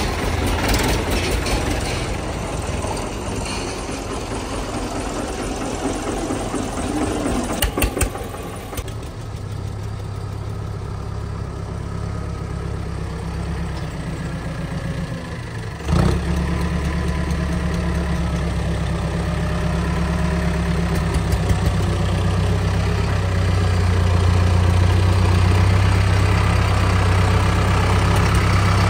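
Diesel tractor engines running with a steady deep drone. A sharp knock comes a little past halfway, after which the low engine note grows heavier and louder toward the end.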